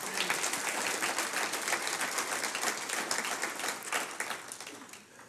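Congregation applauding, a dense patter of many hands clapping that dies away near the end.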